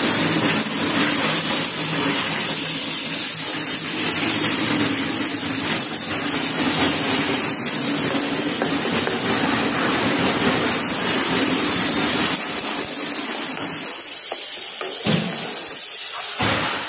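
Pan of mackerel masala hissing and sizzling steadily on a gas flame after water is poured in to keep the spices from burning. The hiss eases somewhat in its deeper part near the end, with a short knock shortly before the end.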